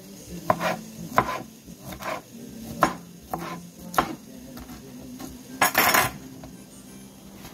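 Kitchen knife cutting lemon on a plastic cutting board: a series of sharp knocks as the blade strikes the board, then a longer scraping clatter near the end as the lemon slices are swept up off the board.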